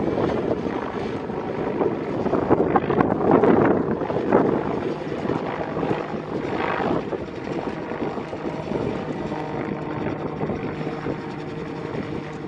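Westland Whirlwind helicopter in flight, its rotor and engine making a steady hum. It is loudest about three or four seconds in, then fades as the helicopter moves away.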